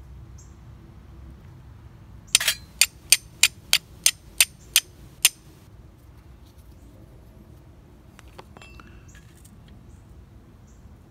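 Carbon steel striker struck against a flint: about nine sharp, ringing strikes in quick succession over some three seconds, throwing sparks into charred natural tinder, which catches an ember. A few faint clicks follow.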